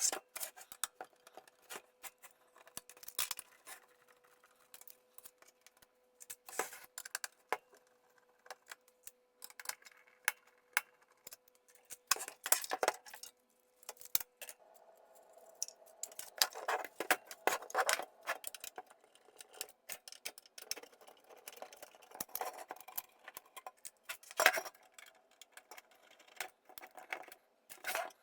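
Irregular sharp clicks and metallic clinks of tools and small metal parts being handled while a UPS's metal chassis is taken apart and modified, with a faint steady tone that stops about halfway through.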